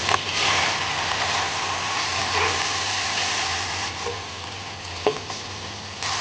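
Food sizzling in a hot pan as it is stirred, a steady frying hiss with a few sharp knocks of the utensil against the pan, the clearest about five seconds in.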